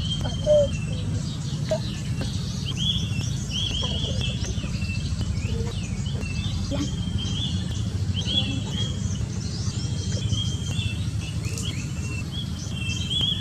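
Small birds chirping over and over in short, high calls, over a steady low hum.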